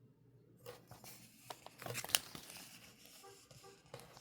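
Crinkling and rustling of sticker and tape packaging being handled, with scattered small clicks and taps; the sharpest crackle comes about two seconds in.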